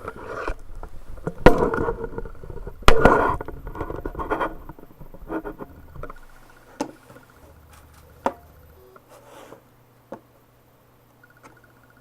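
Computer mouse button being clicked rapidly and irregularly, with a couple of louder knocks, thinning out after about six seconds to a few single clicks.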